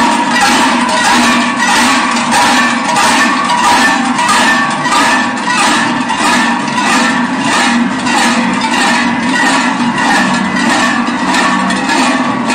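A large group of Swiss Treicheln, big hand-forged cowbells, swung in unison by marching ringers. The clanging is loud and pulses in a steady shared rhythm of roughly two strokes a second.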